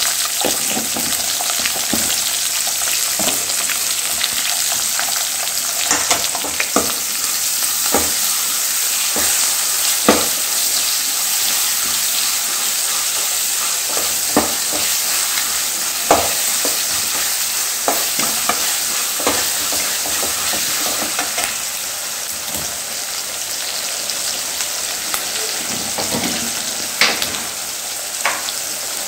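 Sliced onions and ginger-garlic paste sizzling in hot oil in a metal kadai, with a steady hiss. A steel ladle stirs them, clinking and scraping against the pan every few seconds.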